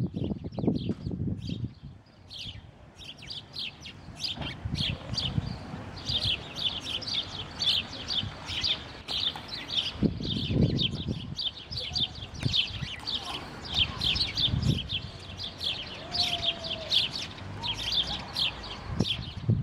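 A flock of sparrows chirping, with many short, high chirps overlapping in a rapid, unbroken stream that thickens after the first few seconds. A few low rumbles come and go, the loudest about halfway through.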